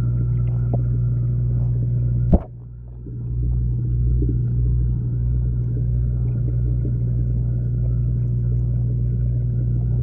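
Steady low underwater hum and rumble. A single sharp knock about two and a half seconds in is followed by a brief drop in the hum, which builds back over the next second.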